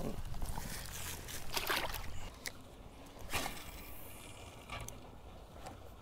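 Water sloshing against a small boat, with scattered knocks and splashes as a largemouth bass is released back into the pond.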